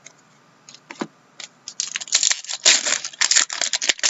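Foil wrapper of a trading card pack crinkling and tearing as the pack is ripped open. There are a few light clicks first, then dense rustling from a little under two seconds in.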